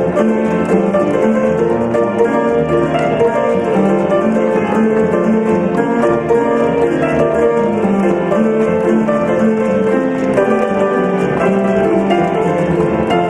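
Upright piano playing a ragtime piece, with notes following one another without a break.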